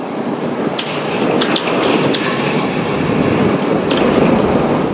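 Heavy machinery running with a loud, steady rumble, with a few sharp metallic knocks about a second in, around two seconds in and near four seconds.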